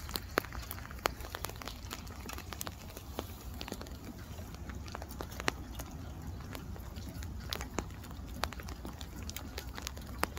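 Scattered raindrops tapping in irregular sharp ticks, a few a second, over a steady low rumble.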